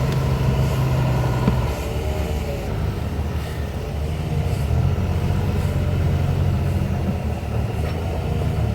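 A large engine running steadily at low revs, dipping slightly in pitch a couple of times.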